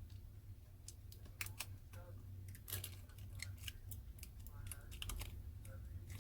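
Irregular small clicks and taps as tools and fingers handle a smartphone's parts while a flex cable is fitted to its board, over a steady low hum.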